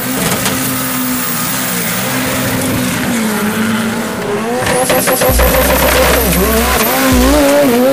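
Engines of small Suzuki 4x4 drag trucks running and revving at a dirt drag strip. About five seconds in, a burst of sharp crackles comes in, followed by a heavy low rumble.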